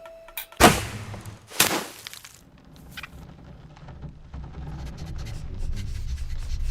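Cartoon sound effects: two loud impacts about a second apart, then a low rumble that slowly builds.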